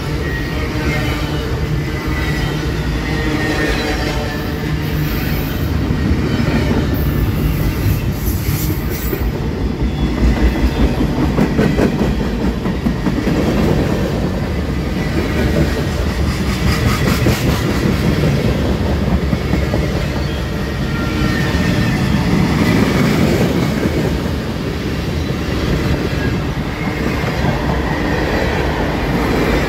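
Freight cars rolling past close by: steel wheels rumbling on the rails and clacking over the rail joints in a steady run.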